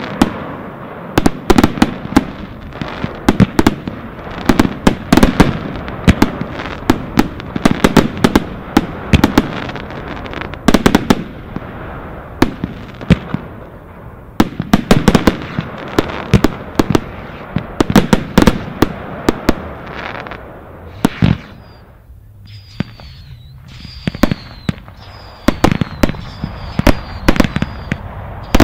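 Fireworks going off in rapid succession: a dense run of sharp bangs and crackles from launches and bursting stars. The firing thins out briefly about three-quarters of the way through, then picks up again with a run of short, high, falling whistles near the end.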